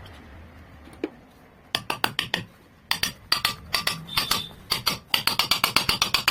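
Rapid metal-on-metal tapping and clinking while a ceiling fan bearing is worked off with a bearing puller. After a single click, a run of sharp ringing strikes starts, several a second, and grows quicker and denser near the end.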